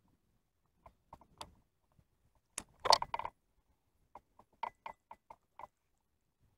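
A series of sharp clicks and light knocks. A loud cluster comes about three seconds in, followed by a run of about six clicks, roughly four a second, near the end.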